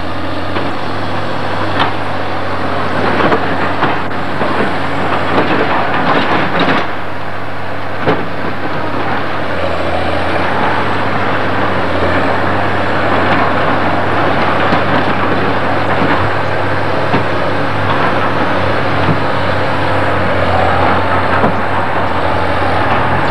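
Diesel engine of a tracked loader running steadily as its grapple handles a steel demolition beam, rising and falling in pitch twice under load. Scattered sharp metal clanks and knocks come in the first several seconds.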